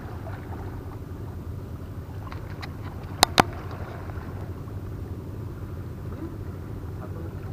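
Steady low outdoor rumble of wind and sea at a rocky shoreline, with two sharp clicks in quick succession a little past three seconds in, the loudest sounds here, and a few fainter ticks just before them.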